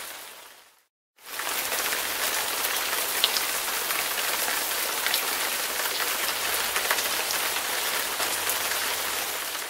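Steady hiss like heavy rain, with a few faint ticks in it. It fades out and comes back about a second in, and starts fading again near the end.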